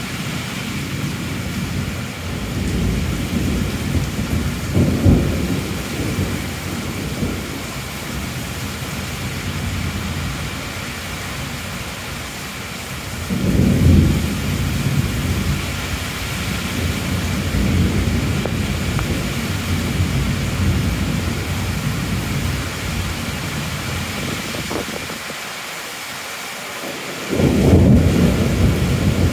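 Heavy rain falling steadily, with thunder rumbling low several times: about five seconds in, again around fourteen seconds, and a louder roll near the end.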